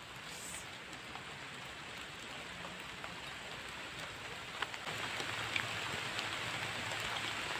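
Rain falling, growing heavier, with sharp ticks of individual drops hitting nearby surfaces from about halfway through.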